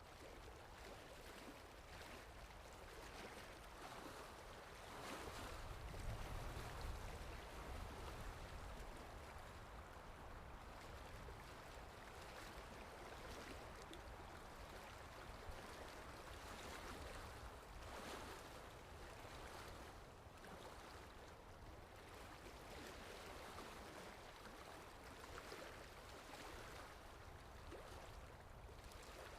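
Sea waves washing in and drawing back, faint and steady, with a fuller, deeper swell about five seconds in.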